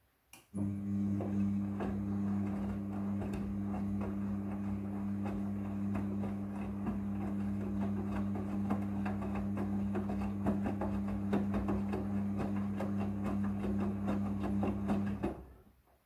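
Midea front-loading washing machine's drum motor starting with a click, then running with a steady hum for about fourteen seconds while the drum turns the load during a wash tumble, with many small clicks and knocks over it. The hum winds down and stops near the end.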